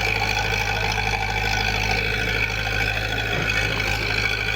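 Heavy machinery engine running steadily at a constant speed.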